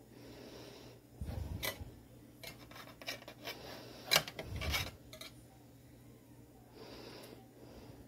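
A metal fork clinking and scraping against a glass baking dish of batter: a few sharp taps, the loudest about four seconds in, among soft rubbing and handling noises.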